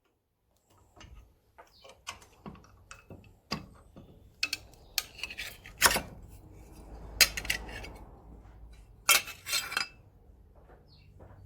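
Irregular metallic clinks and knocks of a small steel repair plate and hand tools being handled and shaped, with louder strikes about six, seven and nine seconds in, over a faint low hum.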